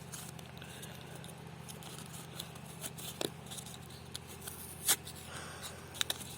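Phone-box accessories and their packaging being handled: scattered small clicks and rustles, with one sharper click about five seconds in, over a steady low hum.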